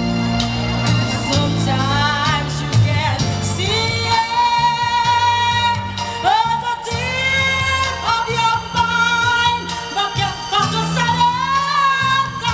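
A woman singing over a backing track through a stage PA, heard from the audience, with long held notes that waver with vibrato and slide up into pitch.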